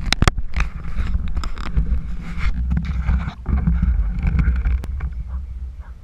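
Water sloshing and bubbling against an action camera's waterproof housing, heard as a muffled low rumble, with a few sharp knocks near the start.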